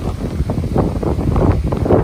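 Strong wind buffeting the microphone: an uneven low rumble that rises and falls in gusts.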